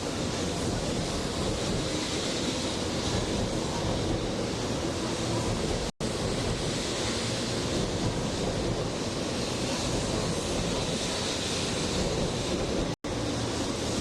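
Steady rushing noise on a Shinkansen platform, broken twice by a split-second dropout, about six seconds in and near the end.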